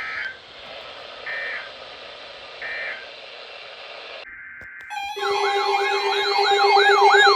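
EAS end-of-message data bursts: three short, screechy digital tone bursts about 1.3 seconds apart over a radio's static hiss. About five seconds in, a loud warbling siren-like alert tone begins, its pitch sweeping down about twice a second over a steady drone.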